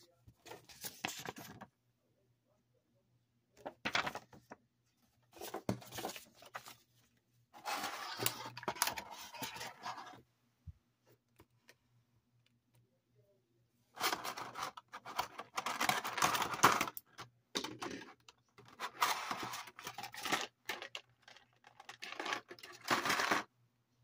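Clear plastic blister packaging crinkling and clicking as an action figure and its spare parts are handled and pulled out of the tray, with paper rustling at the start. It comes in several bursts a few seconds long, with quiet gaps between.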